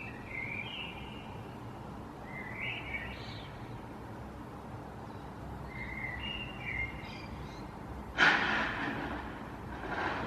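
Small birds chirping and warbling in short phrases over a steady low background rumble. About eight seconds in, a sudden loud rushing noise rises and fades over about a second, with a weaker one near the end.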